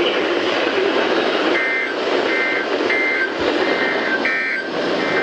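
Weather radio receiver audio: a steady hiss of static, with a run of short, high two-tone beeps starting about a second and a half in and repeating about every two-thirds of a second.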